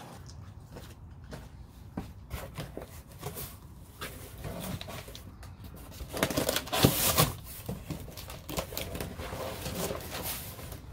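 Cardboard box being opened and handled: its flaps pulled back and the packed contents shifted by hand, giving scattered scrapes and rustles of cardboard, loudest about six to seven seconds in.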